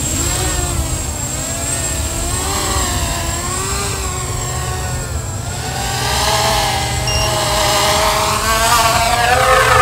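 A 250-class quadcopter's brushless motors spinning 6030 propellers, making a buzzing whine that rises and falls in pitch with the throttle. Near the end it climbs higher in pitch and gets louder.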